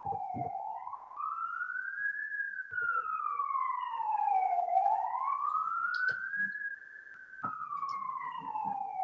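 Emergency vehicle siren wailing, its pitch sliding slowly up and down in sweeps a few seconds long, about twice, with a few faint clicks.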